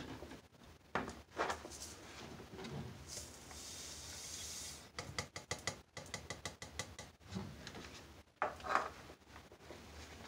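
Dry white granules poured from a small plastic cup into a plastic beaker, a soft hiss followed by a quick run of light clicks as the cup is tapped out. Plastic cups knock lightly as gloved hands handle them.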